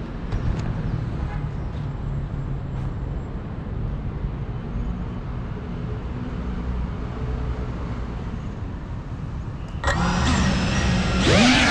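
A low steady rumble. About ten seconds in, an FPV quadcopter's motors spool up suddenly into a loud whine whose pitch wavers up and down with the throttle as it lifts off.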